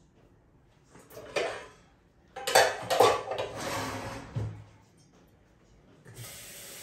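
Kitchenware being handled: a short clatter about a second in, then a longer run of knocks and rattles of pots and utensils around three seconds. A steady hiss begins near the end.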